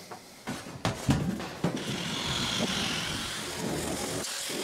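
A few clanks of a thin sheet-metal panel being handled. Then a handheld electric sheet-metal shear runs steadily, cutting through the sheet, with a brief break near the end.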